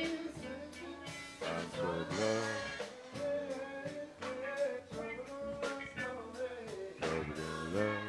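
Live gospel music from a church band, with drums, and a voice singing over it.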